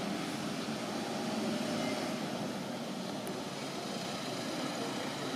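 Steady low rumbling background noise, swelling slightly about a second and a half in.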